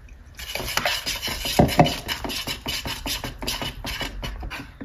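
Wire balloon whisk beating gram flour and water into batter in a plastic bowl: quick, rhythmic scraping strokes, several a second, starting about half a second in and stopping just before the end.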